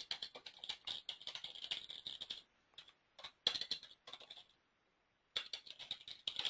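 Typing on a computer keyboard: quick runs of clicking keystrokes broken by two short pauses.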